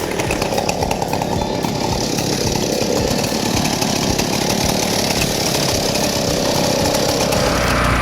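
Vintage Stihl 090, a large two-stroke chainsaw, running steadily. Near the end a deeper steady hum joins in.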